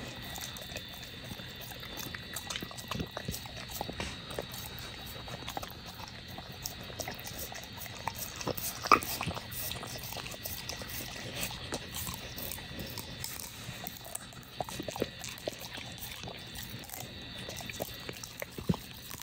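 Pit bull licking and chewing a chocolate-coated ice cream bar on a stick: wet mouth sounds with many small irregular clicks, and a louder click about nine seconds in.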